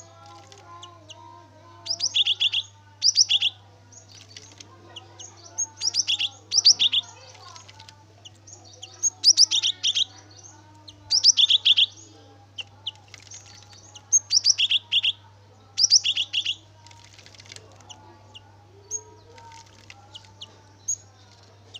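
Cinereous tit (gelatik batu) singing: bursts of quick repeated two-note phrases, a high note then a lower one, each burst about a second long and coming every few seconds. A steady low hum runs underneath.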